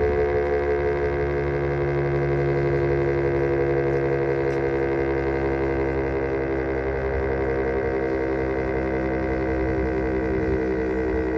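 STH-10 outdoor warning siren sounding a steady tone during its monthly test, a loud held drone of several pitches together, wavering slightly.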